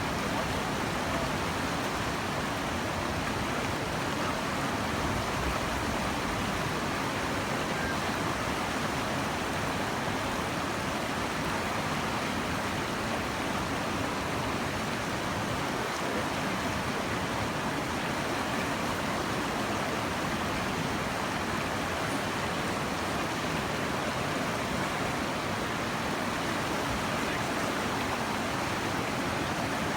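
Flash-flood water rushing down a creek in a steady, unbroken rush.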